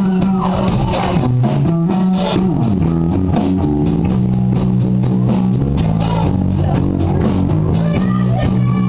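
Rock band playing live: electric guitar, bass guitar and drum kit, with the bass holding steady notes under gliding guitar lines.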